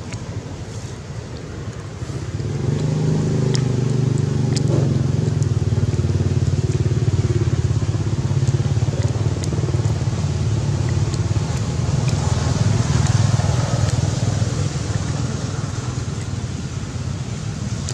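A motor vehicle's engine running steadily close by. Its low hum grows louder about two and a half seconds in and then holds.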